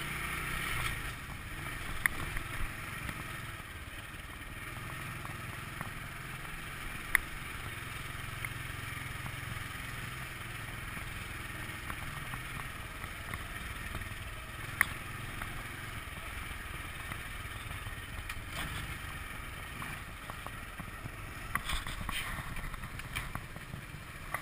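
Honda scooter's small single-cylinder engine running steadily at low speed, a low hum, with a few sharp clicks and some clatter near the end.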